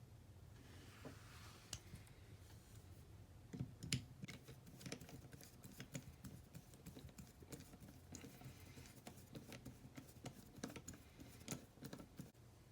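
Faint, irregular small clicks and taps of ratchet parts being handled while the flex-head ratchet is greased and put back together.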